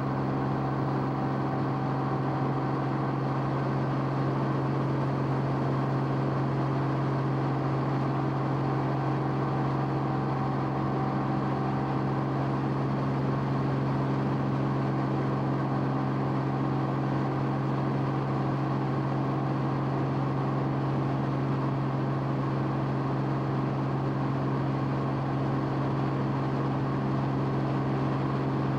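Steady drone of an aircraft's engine heard from inside the cabin, a constant hum that does not change in pitch or loudness.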